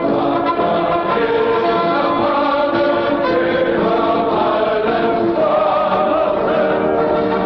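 Choral music: a choir singing held, chant-like notes.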